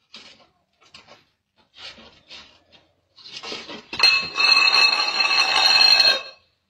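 A few short, scratchy scuffs. Then, about four seconds in, a sudden loud metallic rattling with ringing tones that lasts about two seconds and cuts off. This fits cats scrambling on a small wall-mounted metal box.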